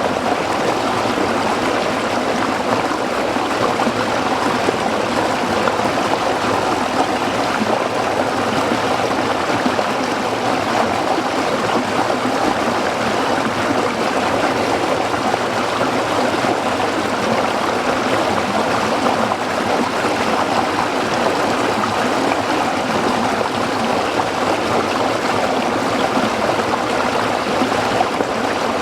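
Small stream flowing over rocks: a steady, even rush of water with no pauses.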